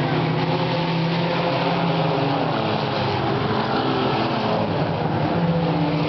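A field of mini stock race cars' four-cylinder engines running together at a steady level, several engine tones overlapping.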